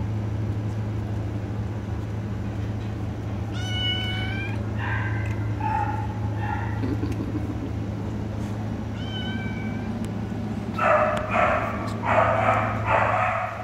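Cats in shelter cages meowing: short, clear meows about four and nine seconds in, then a run of four louder, rougher meows near the end. A steady low hum runs underneath.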